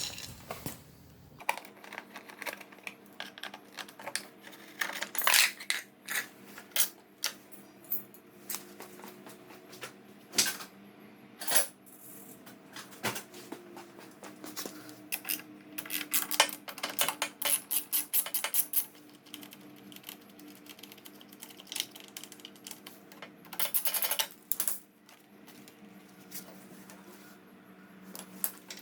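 Metal hand tools clicking and clinking against a small engine's carburetor and fittings as it is being taken off, with runs of rapid, evenly spaced clicks.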